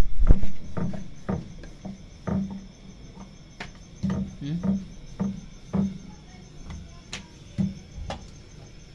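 Irregular soft knocks and clatter of kitchen utensils, a wooden rolling pin and an iron griddle being handled while roti is made, loudest in the first half second.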